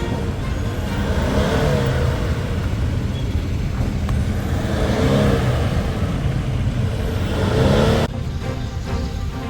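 Toyota Fortuner engine running, its revs rising and falling a few times. About eight seconds in, the engine sound cuts off abruptly and music takes over.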